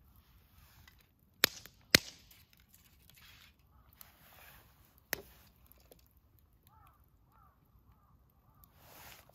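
Campfire wood popping: sharp single cracks, two loud ones about a second and a half and two seconds in and a smaller one about five seconds in, over a faint crackle.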